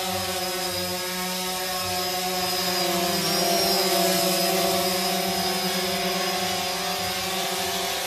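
DJI Phantom quadcopter drone hovering, its propellers making a steady buzzing hum with a thin high whine above it. The hum grows louder a few seconds in as the drone comes close, then eases off.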